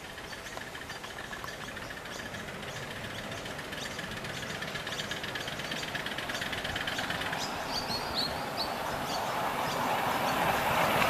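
Miniature live-steam model of the NSWGR Standard Goods Class locomotive 5108, running with its train on a ground-level track with a quick, even beat. It grows steadily louder as it draws near.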